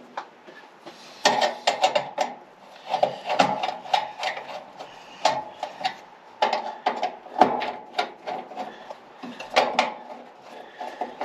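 Metal parts and hand tools being handled and worked: irregular clinks, knocks and scraping in short bursts, some with a brief metallic ring.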